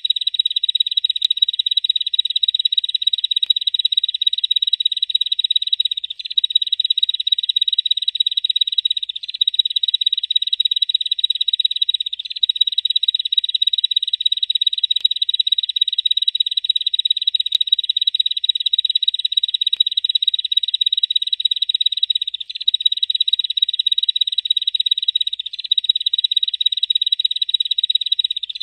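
Bar-winged prinia (ciblek) giving its 'ngebren' call: a continuous, rapid, high-pitched buzzing trill, broken only by brief pauses every few seconds.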